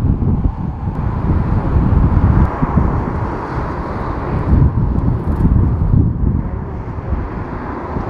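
Strong, gusty wind buffeting the microphone over the rushing roar of jet airliner engines landing and on approach. The jet roar eases about halfway through.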